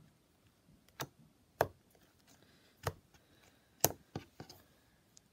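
Glossy slime being pressed and poked by hand, giving about six sharp clicking pops spread over a few seconds, the crunchy sound of air pockets squeezed out of the slime.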